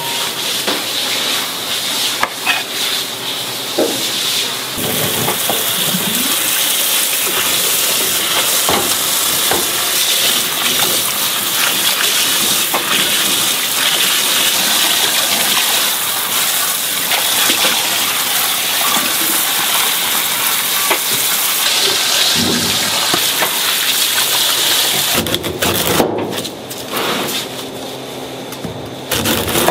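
Water running steadily for about twenty seconds, starting a few seconds in and stopping near the end, followed by a few sharp clatters.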